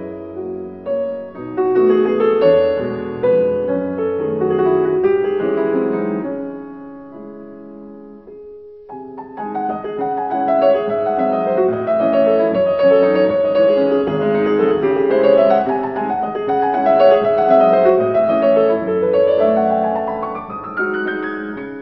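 Solo piano music: a flowing passage that thins out and pauses briefly about nine seconds in, then resumes fuller and ends with a quick rising run of notes.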